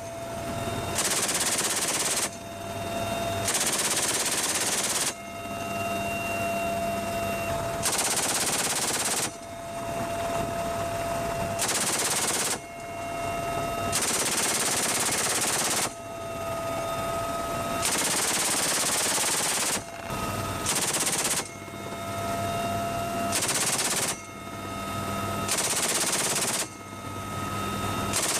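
Door-mounted machine gun on a UH-1Y Venom helicopter firing about ten bursts, each half a second to two seconds long, a couple of seconds apart. Between the bursts the helicopter's steady turbine whine and low hum carry on.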